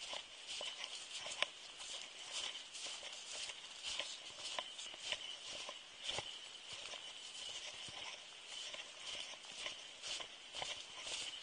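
Hiker's footsteps in snow, a steady walking rhythm of about two steps a second.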